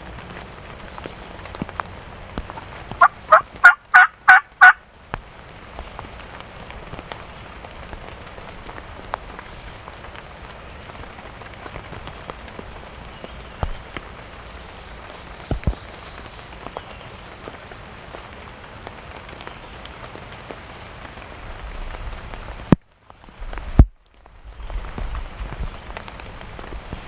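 A series of six loud turkey yelps in quick succession about three seconds in, over a steady patter of rain. Two sharp knocks near the end.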